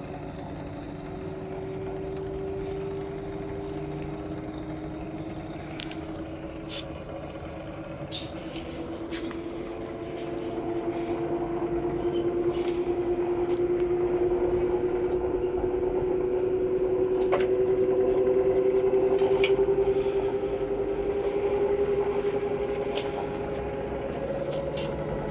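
Samsung EcoBubble washing machine spinning up: its digital inverter motor whines, rising slowly in pitch as the drum gathers speed, and it grows louder about ten seconds in, with a few light clicks and rattles. The drum turns on freshly replaced bearings.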